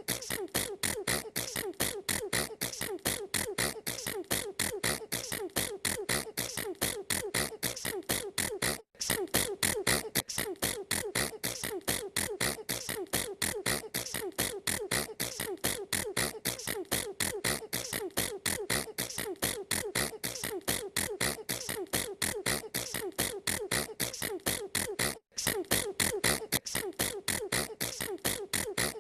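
A girl's sneezes repeating in a fast, even train, about four a second, with two brief breaks, one about nine seconds in and one near twenty-five seconds.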